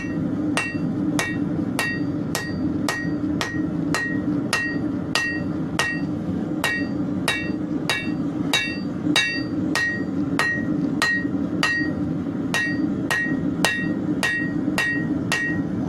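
Hand hammer striking hot leaf-spring steel laid flat on an anvil in a steady rhythm of about two blows a second, each blow leaving a short metallic ring. The smith is flattening a twist out of the blade. A steady low hum runs underneath.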